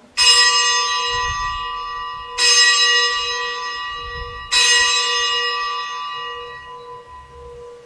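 A bell struck three times, about two seconds apart, each stroke ringing on and slowly fading. It is rung as the chalice is raised at the consecration of the Mass.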